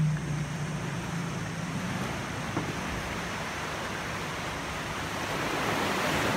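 A boat's engine running low with a steady hum that fades away about two seconds in, leaving the wash of sea waves, which swells louder near the end.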